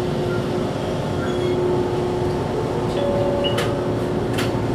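Toyohashi Railway 780-series streetcar running, heard from inside the cabin: a steady rumble with a held hum, and two sharp clicks near the end.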